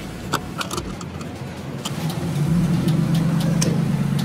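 Plastic fuel cap clicking as it is unscrewed from the filler neck, then a steady low hum from the gas station fuel dispenser's pump starting about halfway through, with a few more clicks over it.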